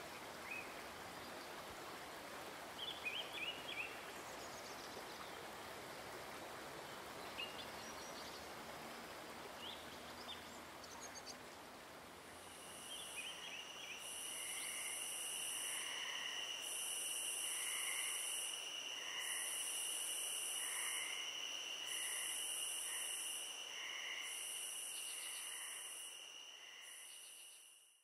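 Forest ambience: a steady hiss with a few short bird chirps. About halfway in, an insect chorus joins: a steady high buzz, a higher buzz that pulses about once a second, and regular lower chirps. It all fades out at the end.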